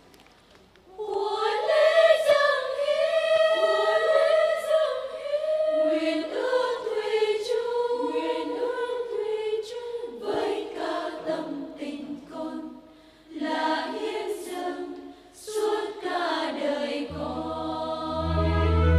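Choir singing, several voices in a flowing melody that starts about a second in. Low, sustained bass notes join underneath near the end.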